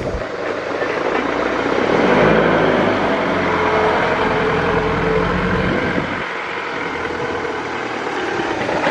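Mini excavator's engine running, growing louder about two seconds in and easing back about six seconds in.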